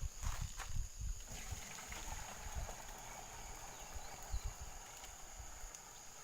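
Liquid trickling steadily into the sprayer from about a second and a half in, after a few low knocks of the sprayer being handled.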